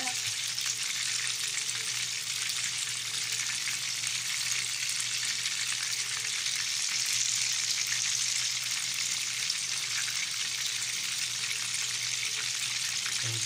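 Chicken karaage deep-frying in a pan of hot oil: a steady sizzling crackle of bubbling oil around the pieces, with a faint low hum underneath.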